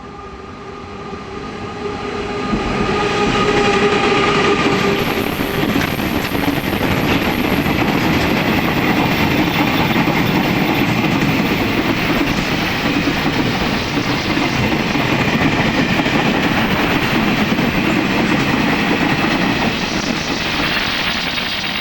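Taiwan Railway E300 electric locomotive hauling a freight train past at speed: the sound rises as the locomotive draws near, with a few steady tones in the first few seconds. Then comes a long steady rumble and clatter of freight wagons rolling over the rails, easing off slightly near the end.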